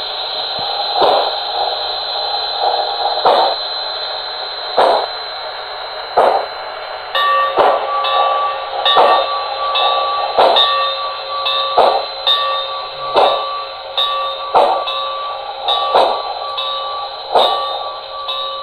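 Soundtraxx Econami sound decoder in an HO-scale Santa Fe 4-8-4 steam locomotive playing steam exhaust chuffs from its speaker at a slow, even beat, about one every second and a half. About seven seconds in, a locomotive bell starts ringing over the chuffing.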